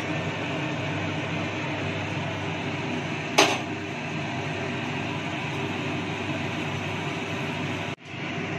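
A phuchka (panipuri) puri deep-frying in hot oil in a steel kadai, sizzling steadily. There is one sharp click about three and a half seconds in, and the sound cuts out briefly near the end.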